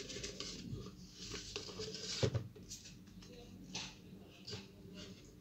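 Pokémon trading cards being handled and sorted by hand: soft rustling and light clicks of card stock against card stock, with a sharper click a little over two seconds in.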